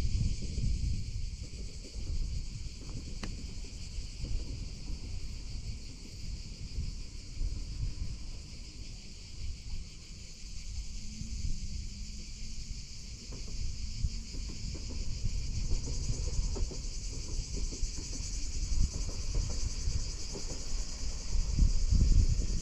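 A steady, high-pitched chorus of insects that grows louder about two-thirds of the way through, with gusts of wind rumbling on the microphone.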